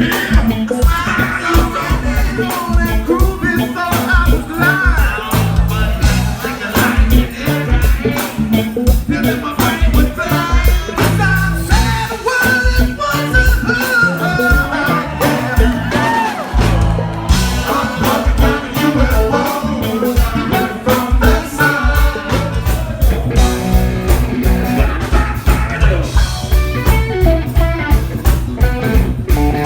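Live funk band playing at full volume: a driving drum beat and heavy bass with electric guitar, and singing over the top.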